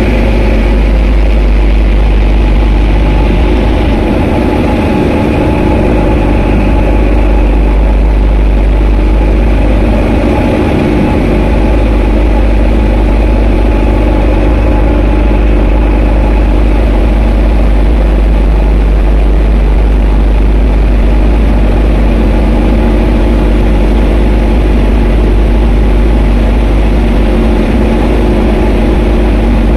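Tugboat's diesel engine running steadily under load while towing a heavily loaded coal barge: a loud, deep, even drone with no change in pace, over the rush of propeller wash.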